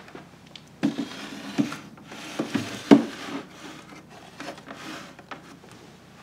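Woven wicker basket being slid onto the lower wooden shelf of a small table. It knocks and scrapes against the wood several times, with the loudest knock about three seconds in and a few softer taps near the end.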